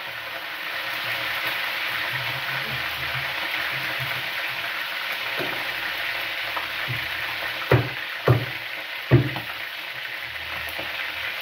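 Meat frying in a pan of hot oil on a gas stove, a steady sizzle. About eight seconds in, a knife knocks sharply on a cutting board three times in quick succession.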